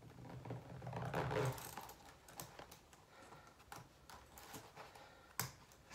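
Faint clinks and rustles of the chains and stiff boot material on chain-wrapped platform boots as they are pulled on by hand, with one sharper click about five and a half seconds in.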